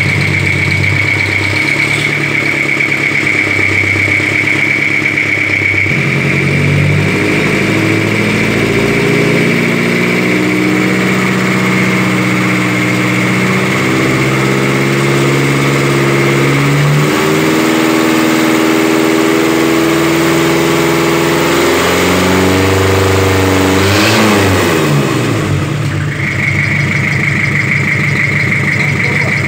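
Toyota 1C 1.8-litre four-cylinder diesel engine running out of the vehicle. It idles with a steady high whine, is revved up in steps and held there, then drops back to idle about 24 seconds in. The mechanic says it is in good condition, with its injection pump problem fixed.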